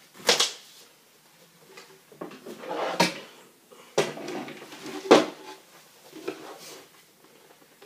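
A series of sharp knocks and scraping handling noises in a small room, like a drawer or furniture being moved, about six of them spread out, the loudest about a quarter second in and about five seconds in.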